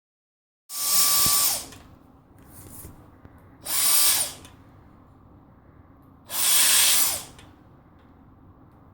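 Dyson vacuum cleaner motor switched on and off in three short bursts of about a second each, whining up to speed and winding down each time.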